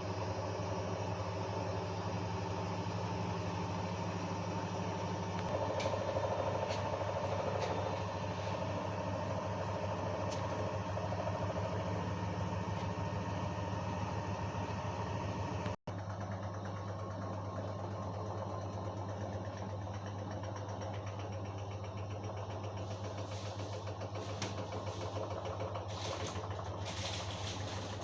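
LG WD-1054FB front-loading washing machine running with a steady low hum. A few faint ticks come through, and the sound drops out for an instant a little past halfway.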